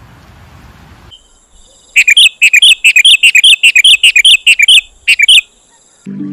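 A bird calling loudly: a rapid run of sharp, repeated chirps, about four or five a second, starting about two seconds in and lasting some three seconds, with a short break just before the last few notes.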